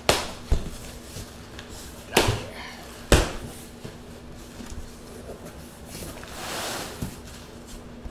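Large cardboard shipping box being opened by hand: flaps pulled apart and folded back, giving four sharp cardboard knocks and scrapes in the first three seconds or so, then a softer scraping rustle near the end.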